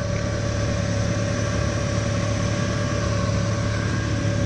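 2000 Toyota 4Runner engine idling: a steady low hum with a constant higher tone above it.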